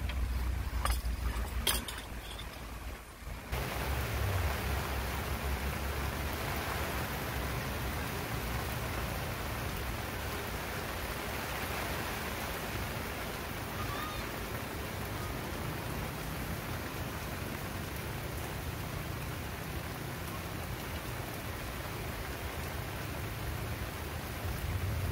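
Kovea butane canister camping stove burning with a steady hiss under an aluminium moka pot while the coffee brews up, over a low steady rumble. A few light clicks in the first couple of seconds as the pot is handled, before the hiss sets in.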